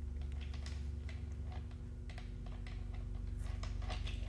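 Light, irregular metal clicks and taps as the flange washer and thin cutting disc are fitted onto an angle grinder's spindle by hand, over a steady low hum.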